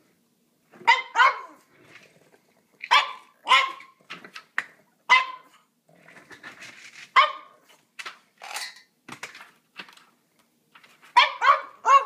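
A pug barking for its dinner: a dozen or so short, sharp barks, several in quick pairs.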